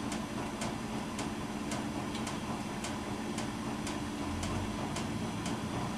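A clock ticking evenly, about one tick a second with fainter ticks between, over a low steady room hum.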